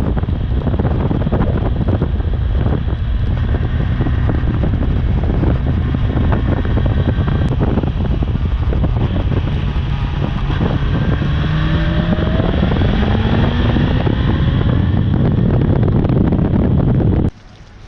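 Wind buffeting the microphone on a moving motorcycle, under which the Honda CB400's inline-four engine climbs in pitch as it accelerates from about ten seconds in. The sound cuts off abruptly near the end.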